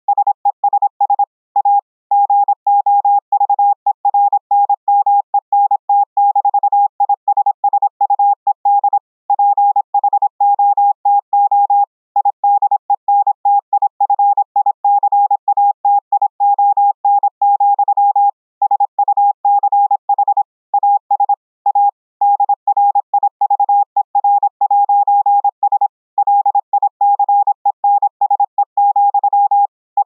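Morse code (CW) sent at speed: a single steady tone keyed on and off in rapid dots and dashes, with short pauses between groups, relayed over a Discord voice call.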